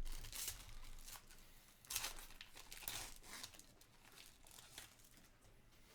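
Plastic wrapping on trading card packaging crinkling and tearing as a hockey card box is opened, in irregular crackles that are loudest at the start and about two seconds in, then fade.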